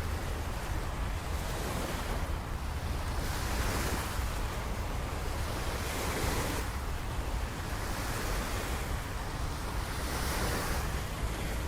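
Rushing water and wind, a steady wash that swells and eases every few seconds over a low rumble of wind on the microphone.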